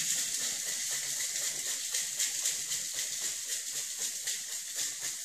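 Boston cocktail shaker (tin over glass) shaken hard with ice and liquid inside: a fast, continuous rattling swish of ice against the shaker.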